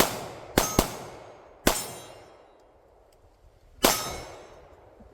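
Pistol shots fired in quick strings with metallic ringing after them, typical of hits on steel targets: one shot right at the start, a quick pair about half a second later, another about a second after that, and a last shot about two seconds later.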